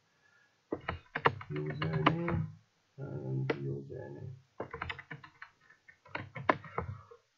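Computer keyboard typing: quick runs of key clicks in several bursts with short pauses between them. A voice sounds indistinctly under some of the clicks.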